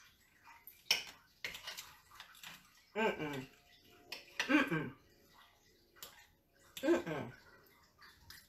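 Fork and knife clinking and scraping on a ceramic plate while eating, with a sharp clink about a second in. Three falling hums of enjoyment, "mmm", at about three, four and a half, and seven seconds, as she tastes the food.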